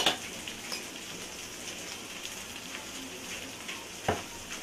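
Prawn masala sizzling in oil in a pan: a steady fine crackle, with a couple of louder clicks, one at the start and one about four seconds in.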